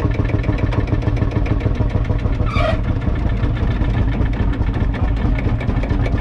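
1948 Field Marshall Series 2's 5.1-litre single-cylinder two-stroke diesel engine running steadily, each firing stroke heard as a rapid, even beat.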